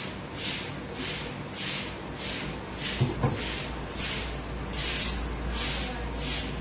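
Cooking oil heating in a nonstick kadhai, sizzling in short hissing bursts about every half second, over a low steady hum.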